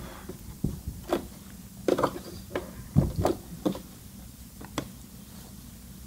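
Scattered, irregular clicks and light knocks from hands working at a Brother ST371HD sewing machine, turning the thread tension dial up from 3.5 to 4 and shifting the knit fabric.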